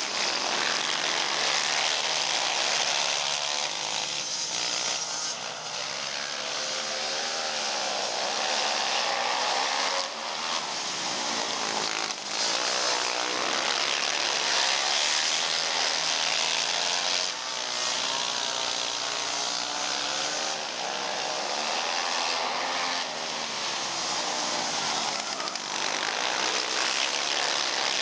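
A pack of racing ATV engines revving hard on a dirt oval. Several engines overlap, and their pitch keeps rising and falling.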